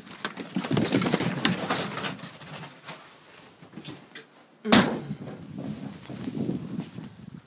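Rustling, scuffling and clicking as a door is opened onto snow, with one sharp knock a little under five seconds in.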